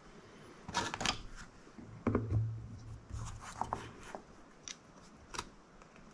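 Light clicks, taps and rustles of hands handling a small carbon-fibre drone frame and a small screwdriver while a screw is turned in. Two louder handling bursts come about one and two seconds in, followed by a few scattered sharp clicks.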